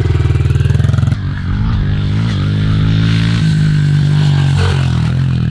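Honda CRF110 pit bike's small single-cylinder four-stroke engine running close by with a choppy beat, changing abruptly about a second in to the note of the bike being ridden, its pitch rising and falling with the throttle.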